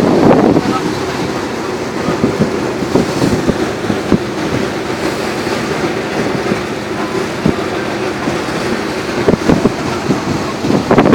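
Steady mechanical running noise aboard a fishing boat, with frequent irregular knocks and rattles.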